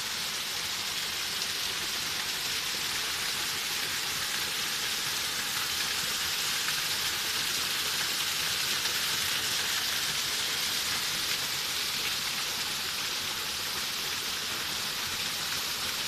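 Small waterfall running under its winter shell of ice and splashing into the stream below: a steady, even hiss of falling water.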